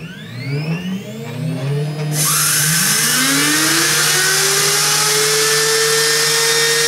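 CNC router spindle starting up. About two seconds in, a loud hiss sets in, with a whine that rises in pitch and then holds steady as the spindle comes up to speed. Before that, electronic whooshing sweeps are heard.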